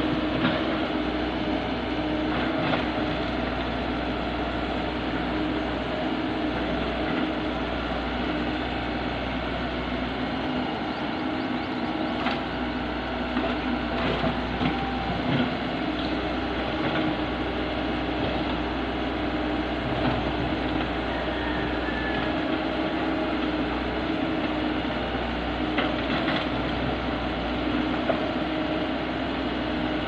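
Diesel engine of a compact tracked excavator running steadily while it digs soil, with a few sharp knocks from the work scattered through.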